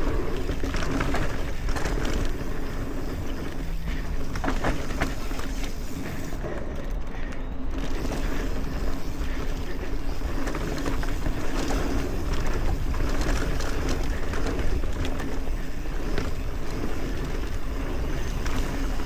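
Mountain bike rolling down a dirt trail: a steady rush of wind and tyre noise, with frequent short clatters and knocks from the bike over the bumps.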